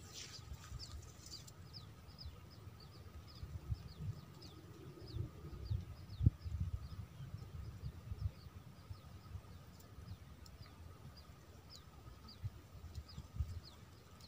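A bird calling a short, high, falling note over and over, about three times a second, over a faint steady high hum and low wind rumble on the microphone.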